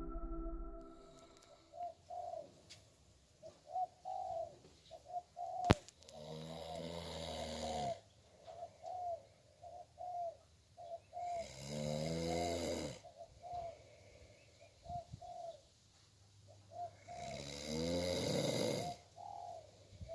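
Doves cooing over and over in short, low, rounded notes. Three longer, louder rasping sounds come at regular gaps, and a single sharp crack sounds about six seconds in.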